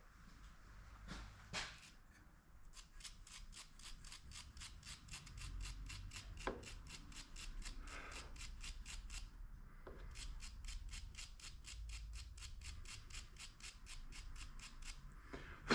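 Small wire brush scrubbing a spark plug's electrode end in quick, even strokes, about four or five a second, with a short pause a little past the middle: cleaning a plug that is in good shape, with a square electrode and a good gap.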